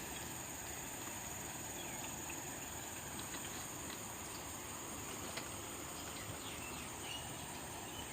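Steady high-pitched trilling of insects, with a few faint short chirps now and then.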